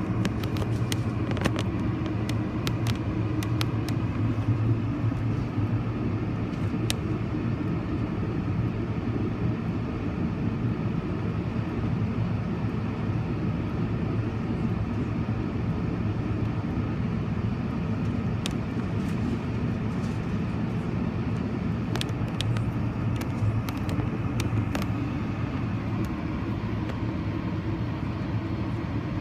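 Steady low drone of a Boeing jetliner's engines and rushing air heard inside the passenger cabin during descent, with scattered light clicks in a cluster in the first few seconds and another about two-thirds of the way through.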